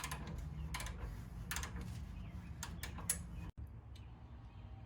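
Scattered sharp clicks and clinks of hand tools and metal parts, several in the first three seconds, over a low steady hum. The sound breaks off briefly about three and a half seconds in and is quieter after.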